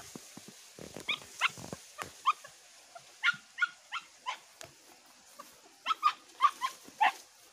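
Hunting dog yipping: short, high yelps, each falling sharply in pitch, coming singly and in loose clusters of two or three. This is the yip of a hunting dog working a scent.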